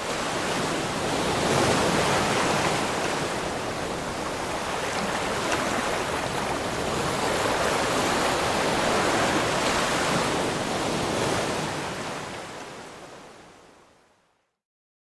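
A rushing, surf-like wash of noise that swells and eases in slow waves, then fades out to silence near the end.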